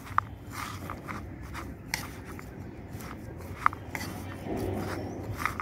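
Plastic spoon stirring a bowl of sprouted pulses and grated carrot: soft scraping and rustling, with a few sharp clicks as the spoon knocks against the plastic bowl.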